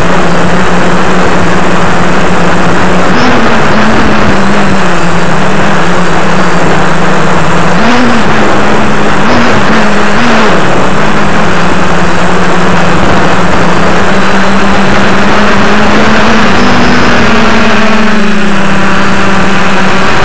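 DJI F450 quadcopter's motors and propellers buzzing loudly under a rushing noise, heard from the camera on the frame. The hum's pitch briefly rises and dips several times.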